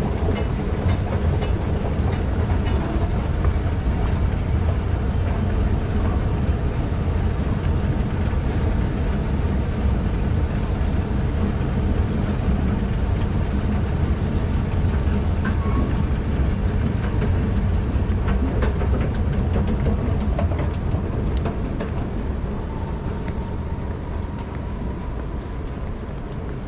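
Steady low mechanical rumble of a moving escalator in an underground MRT station, with faint scattered clicks. It grows quieter over the last few seconds.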